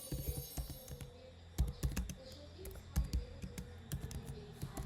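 Typing on a computer keyboard: irregular keystrokes with short pauses, as in a timed typing test.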